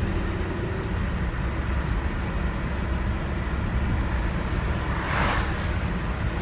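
Volkswagen Beetle driving, heard from inside the cabin: a steady low engine and road rumble, with a brief rushing hiss about five seconds in.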